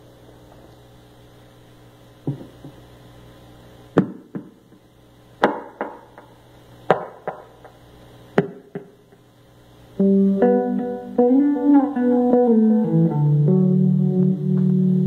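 Electric guitar played through an amplifier: a few separate picked notes over a steady low hum, then from about ten seconds in a much louder run of sustained notes that bend in pitch, moving into chords.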